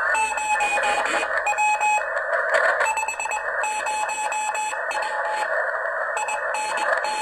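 Morse code (CW) signal from a ham radio receiver: a single tone keyed on and off in short and long elements, over a steady hiss of band noise.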